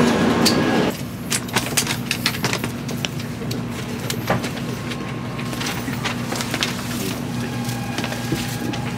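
Loud train noise cuts off sharply about a second in, leaving the steady hum of a shinkansen carriage standing at a platform. Scattered clicks and rustles of bags and clothing are heard as passengers settle in.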